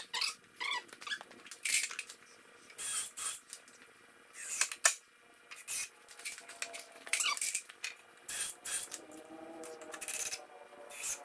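Short clicks, knocks and clatter of tools and lumber being handled, with a cordless drill driving a screw into the wooden chair frame near the end.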